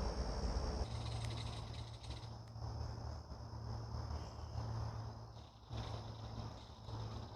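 Crickets or other insects trilling steadily in a high, thin tone that fades about two seconds in, over a constant low rumble.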